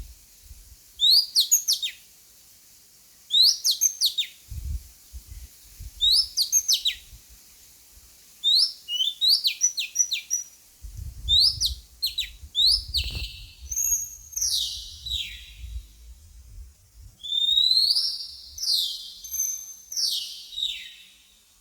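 Oriental magpie-robin calling: short high chirps that sweep up then drop, in bursts about every two seconds, coming faster and overlapping in the second half. A low rumbling noise sits underneath in places.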